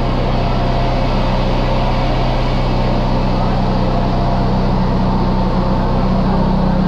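Steady rush of turbulent, churning water in a treatment plant's open concrete basins, under a constant machine hum.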